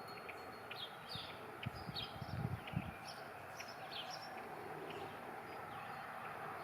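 Small birds chirping in short, high calls over a steady outdoor background hiss, with a few low thumps about two to three seconds in.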